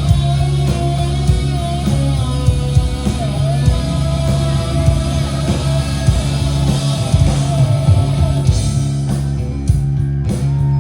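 Rock music with guitar: a steady low bass line under a wavering lead melody, with sharp drum hits coming in near the end.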